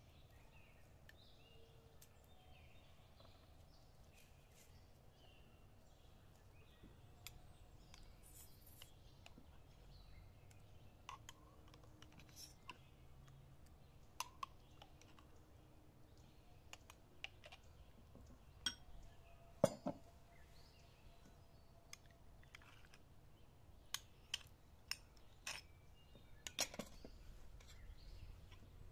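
A metal spoon clinking and scraping against a glass jar and a ceramic bowl while thick mayonnaise is scooped out and stirred. The sound is a series of faint, scattered light taps, with the sharpest clicks coming in the second half.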